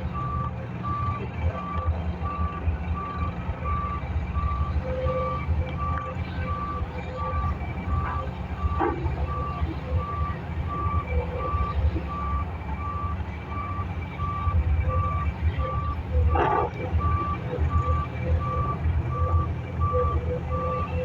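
Heavy-equipment backup alarm beeping steadily about twice a second over the low rumble of large diesel engines, with a couple of brief clunks about nine and sixteen seconds in.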